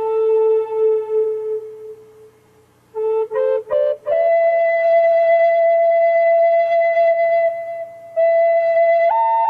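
Background music: a slow solo flute melody. A long held note fades away about two seconds in, then after a short pause a quick run of rising notes leads to a higher note held for several seconds, with a brief break and a step up to a higher note near the end.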